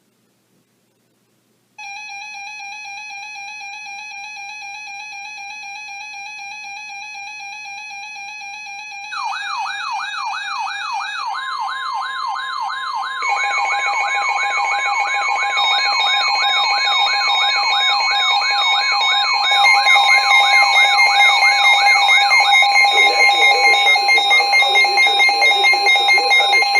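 Several weather radio receivers sounding their alert alarms at once for a severe thunderstorm warning. A steady alarm tone starts about two seconds in, a fast warbling siren-like tone joins at about nine seconds, and more steady tones pile on after that, each step louder. The warble stops a few seconds before the end.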